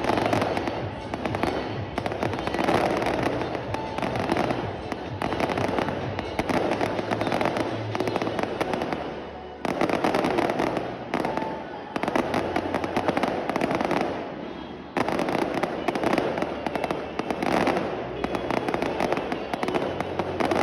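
Fireworks display going off continuously: dense rapid crackling and bangs, with sudden loud new volleys about ten and fifteen seconds in.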